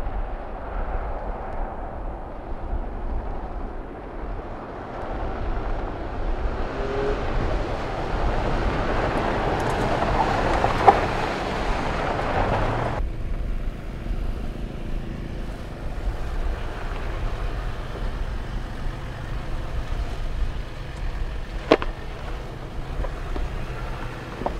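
Jeep Grand Cherokee SUVs driving on a dirt trail: engine and tyre-on-gravel noise that builds as they pass, then cuts off suddenly about halfway through to a quieter, steady engine sound. A single sharp click comes near the end.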